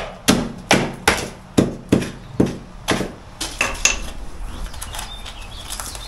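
Repeated blows of a hand tool chopping into insulated plasterboard at the base of a wall, about two to three strikes a second, about eight in all, stopping about three seconds in; a few lighter knocks follow.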